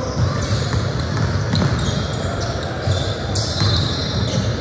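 Spectators chattering in a large echoing hall, with a basketball bouncing on the court and a thin high squeak starting about three seconds in.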